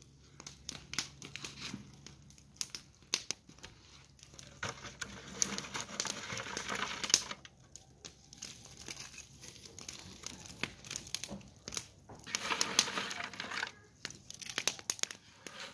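Dry red cedar wood chips rustling as handfuls are scooped from a plastic bucket and tossed onto a wood fire, with sharp crackles throughout. The rustling gets busier twice, about a third of the way in and again past three-quarters of the way through.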